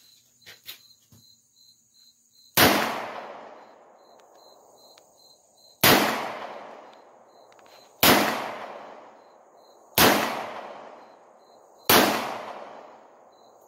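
Five shots from a five-shot Taurus .357 Magnum revolver firing .38 Special full-metal-jacket rounds, spaced about two to three seconds apart, each followed by a long fading echo; the five shots empty the cylinder.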